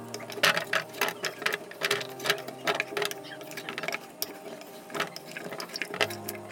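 Parboiled potato chips being tipped from the pot into a tray: a rapid, irregular run of clicks and knocks as the pieces tumble against the metal.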